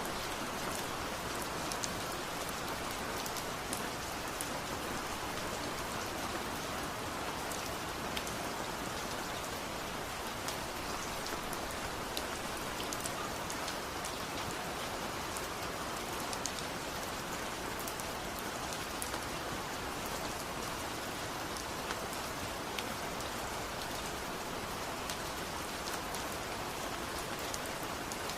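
Steady rain falling on hard surfaces: an even hiss of rainfall with many sharp individual drop ticks scattered through it.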